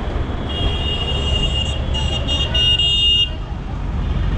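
A high-pitched vehicle horn honks in the street, first one long honk and then three shorter ones in quick succession, over a steady rumble of traffic.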